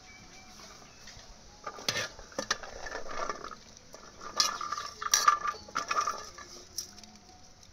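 Metal utensils clinking and scraping against a pot or dish. The clinks come in scattered clusters with a brief ringing, busiest about four to six seconds in.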